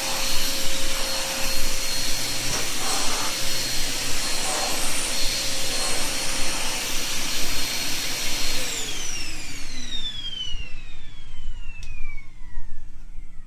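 Vacuum cleaner running with a steady whine, then switched off about two-thirds of the way through, its motor winding down in a falling whine.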